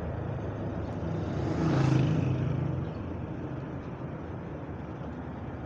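Motorcycle riding along a road, its engine giving a steady low drone under road noise. About two seconds in, another vehicle passes close by, swelling and then fading within about a second.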